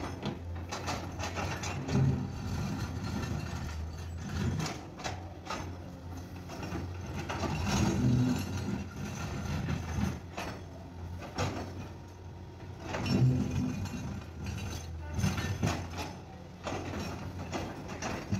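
Caterpillar 336D hydraulic excavator working: its diesel engine runs steadily and swells under load every two or three seconds as the hydraulics work, with sharp knocks and clanks throughout.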